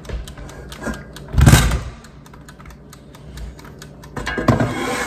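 Air fryer basket being handled and slid into the air fryer: a run of light plastic and metal clicks and rattles, with one louder knock about a second and a half in.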